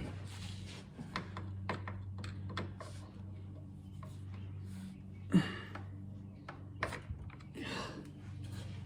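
Scattered clicks, taps and scrapes of hand tools working a very tight drain screw on a Honda B100 outboard's lower unit, with one louder knock about five seconds in, over a steady low hum.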